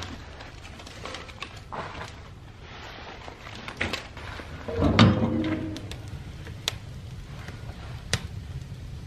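Dry leaves and kindling catching fire in a homemade steel wood stove, with scattered sharp crackles and a louder clunk about five seconds in.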